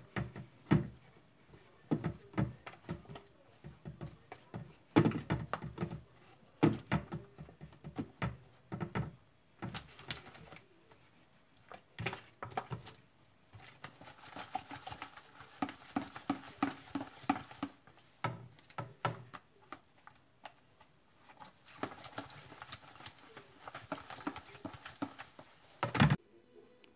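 Hands working seasoning into whole fish in a plastic box: irregular soft taps and knocks of the fish and box against the tray, with two stretches of rubbing noise and one sharper knock near the end.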